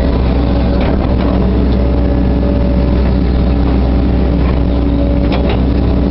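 Hitachi Zaxis 130LCN excavator's diesel engine running steadily at working speed while it swings soil, with a few short light knocks near the end.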